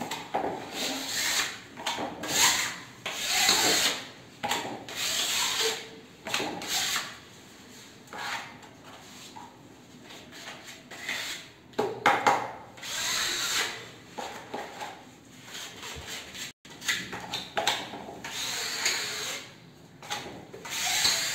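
Repeated scraping strokes of a small hand tool spreading two-part chemical grout along the joints of glazed floor tiles, in irregular bursts with a quieter stretch midway.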